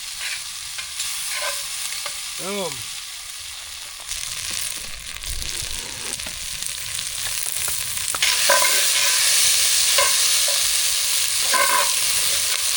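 Vegetables sizzling as they fry in oil in a pan over a campfire, with a utensil stirring and clicking against the pan. The sizzle gets louder about eight seconds in.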